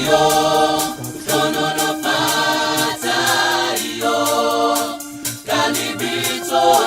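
Background music: choral singing in a gospel style over a steady beat.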